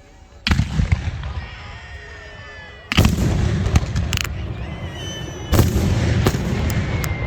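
New Year's fireworks going off: three loud booms, about half a second in, at about three seconds and near six seconds, each followed by sharp cracks and a rolling rumble.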